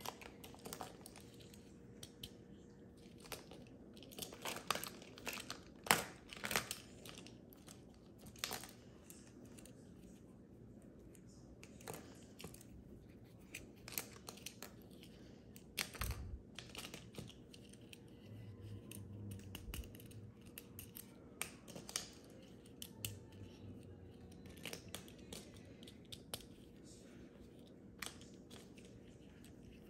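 Small hard-plastic toy figures being picked up and set down, clicking and tapping against each other and a stone countertop in irregular light clicks.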